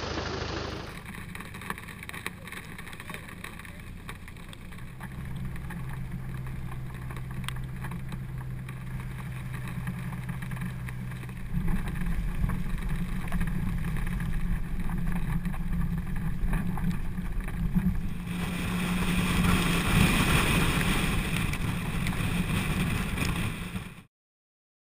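Vehicle engine running with wind rushing over a camera mounted on the outside of the moving vehicle; the drone gets louder about halfway through, turns windier near the end and cuts off suddenly.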